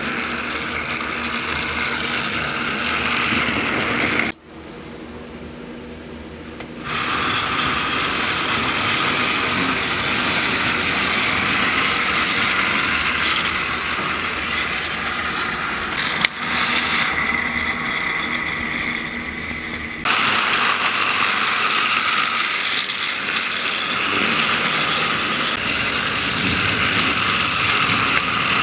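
Small battery-powered toy train motor whirring, with its gears rattling as the engine runs around plastic track. The loudness changes abruptly: much quieter from about four to seven seconds in, and louder again from about twenty seconds in.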